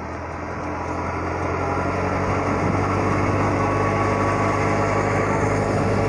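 Tractor-driven wheat thresher running steadily: the tractor's diesel engine and the spinning threshing drum make a continuous mechanical hum. It grows louder over the first couple of seconds, then holds steady.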